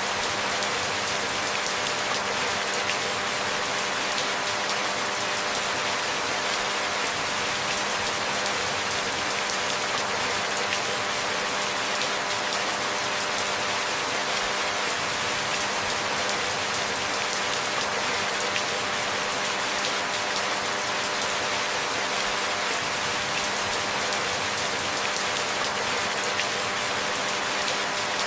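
Steady rainfall, an even hiss of falling rain with no breaks or sudden changes.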